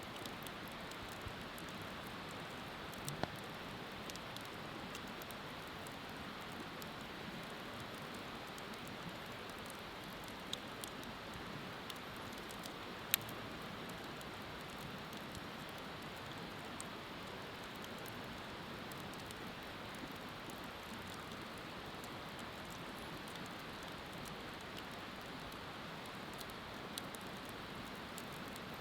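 Wood bonfire burning with a steady hiss and scattered sharp crackling pops, the loudest about thirteen seconds in.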